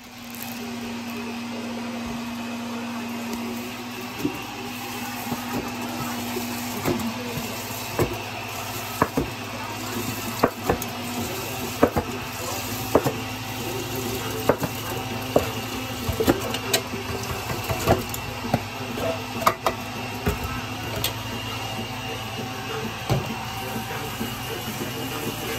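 Sharp clinks and knocks of kitchenware against a large glass drink jar while fruit margarita mix is made, about one a second, over a steady background hum.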